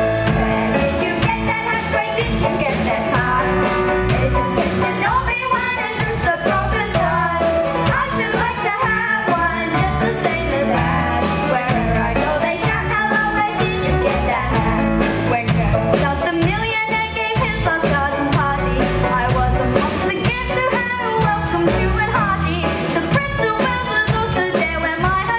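Upbeat musical-theatre song: singing over an instrumental accompaniment with a steady beat.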